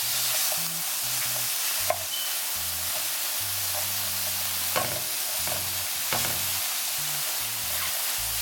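Sliced mushrooms and red onion sizzling in an oiled frying pan as they are stirred, with three sharp knocks of the stirring utensil against the pan.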